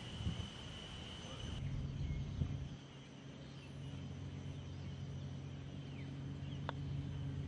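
Quiet outdoor background with a steady low hum. A thin high whine stops about a second and a half in, and a single faint click comes near the end.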